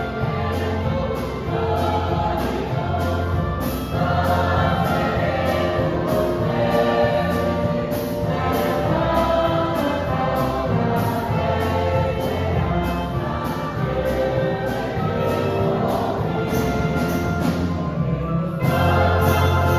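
Choir singing with an orchestra accompanying, a steady gospel hymn.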